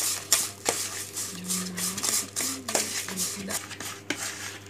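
Plastic spoon stirring and scraping damp fish-bait powder in a plastic bowl, in quick repeated strokes: the bait mix is being worked together after hot water has been added.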